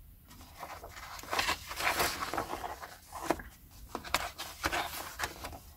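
Paper and hardback books being handled: pages turning and rustling, with a series of soft, irregular brushes and light taps.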